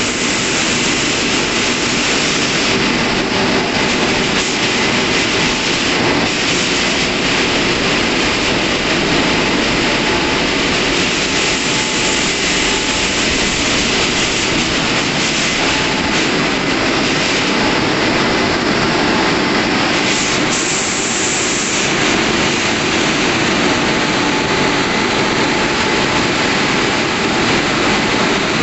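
WashTec SoftCare 2 Pro car-wash dryer blowing: a loud, steady rush of air from its blowers as the roof-dryer nozzle travels along the car.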